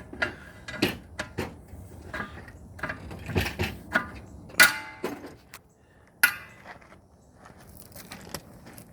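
Steel clanks and knocks as the outside lock ring is fitted onto a multi-piece truck wheel. The two loudest strikes ring like struck steel: one about halfway through and another about a second and a half later.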